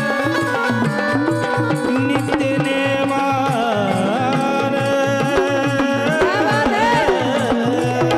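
Jagran gondhal folk devotional music: a quick, even drum beat under sustained melodic notes, with a melody line that bends and wavers above.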